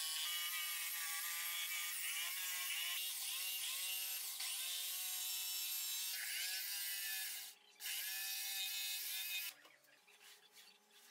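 DeWalt jigsaw cutting a curve in a wooden panel: a steady high motor whine whose pitch sags and recovers again and again as the blade takes up the cut. It breaks off briefly about three quarters of the way through, runs again, then stops near the end, leaving a few faint clicks.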